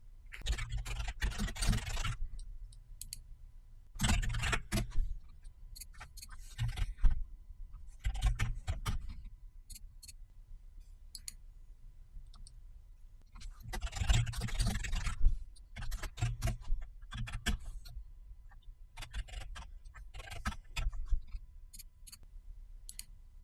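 Typing on a computer keyboard in several short runs, with single mouse or key clicks between them, as product details are entered into a form.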